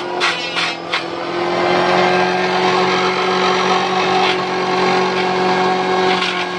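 A small forage chopper driven by an electric water-pump motor through a V-belt runs steadily with a humming drone while leafy green branches are fed in and shredded, a dense rattling crunch. There are a few sharp cracks in the first second as stems hit the blades.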